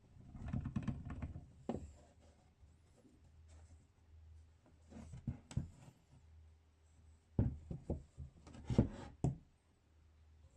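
Hands handling the rusty old meat grinder's metal parts: scattered groups of knocks and clicks, the loudest near the end.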